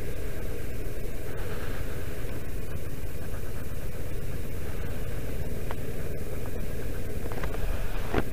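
Kawasaki Versys 650's parallel-twin engine running steadily while riding on a snowy road, a dense low rumble mixed with wind and road noise. A brief sharp sound near the end.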